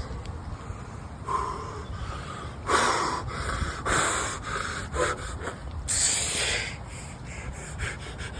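A person breathing hard under exertion during a strength-training set, with several forceful breaths through the nose and mouth, a second or two apart.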